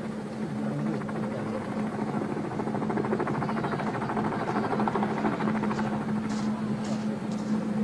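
Tandem-rotor helicopter flying low, its rotors beating fast over a steady hum; the rotor beat grows louder about two seconds in.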